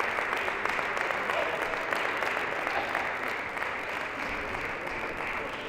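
Audience applauding a point in a table tennis match, the clapping slowly dying away near the end.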